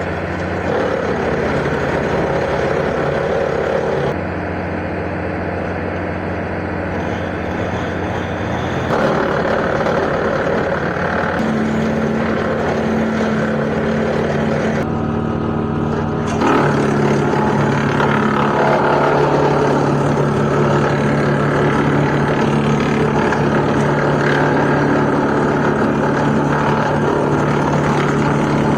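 John Deere 4600 tractor's diesel engine running steadily under the chipper work, its pitch and tone shifting abruptly a few times.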